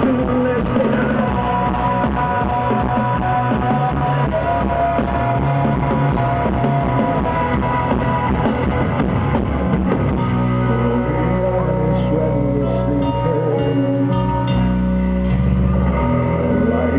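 Live rock band playing: electric guitars, bass and drums at full volume. About two-thirds of the way through the passage thins out to long held bass notes with lighter guitar above.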